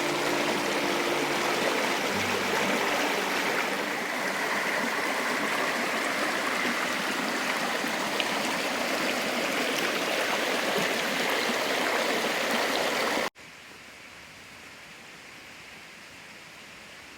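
Creek water flowing steadily, then about thirteen seconds in it cuts suddenly to a much fainter rush.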